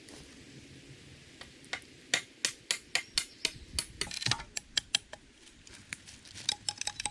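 A run of sharp knocks, about three or four a second, from about two seconds in to about five seconds. Near the end comes a faster patter of lighter clicks with a faint ringing note.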